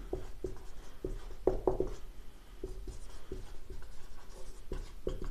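Marker pen writing on a whiteboard: a string of short, faint strokes and taps as words are written.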